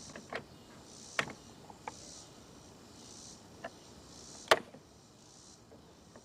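Scattered sharp clicks and knocks of hand tools on metal parts in a car's engine bay, about five in all, the loudest about four and a half seconds in, over a faint high hiss that swells and fades about once a second.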